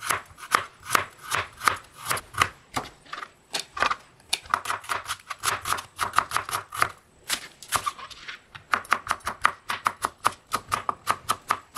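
Santoku knife slicing vegetables on a plastic cutting board: a steady run of short crisp cuts, about three to four a second, through carrot, onion, scallion and green chili.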